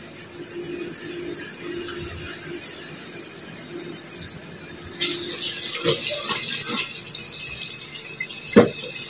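Masala sauce sizzling and bubbling in an aluminium pot on a gas burner while a steel ladle stirs it. The sizzle grows louder about five seconds in, with a few ladle knocks against the pot and one sharp knock near the end.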